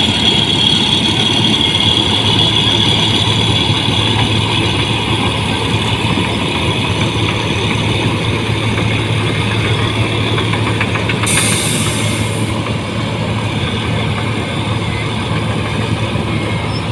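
Rice combine harvester running steadily, with a constant low engine hum and a high whine that fades over the first few seconds. A brief hiss comes about 11 seconds in.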